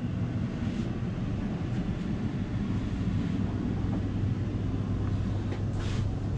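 A steady low rumble, with a few faint rustles or knocks near the end.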